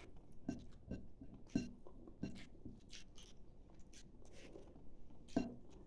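A person eating lemon chicken and rice with her fingers: soft chewing with small scattered mouth clicks and smacks, a sharper click about a second and a half in and another near the end.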